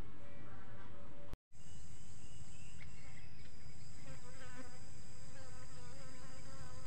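Steady high-pitched insect buzzing, broken by a brief cut-out about a second and a half in, with faint rows of short repeated chirps between about four and six seconds in.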